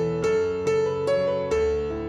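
Background piano music: gentle keyboard notes struck about twice a second.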